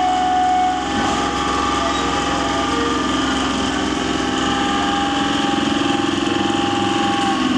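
Electric multiple unit local train's motors and auxiliary machinery humming steadily as it moves slowly along the platform, with several held whining tones over a fast even buzz.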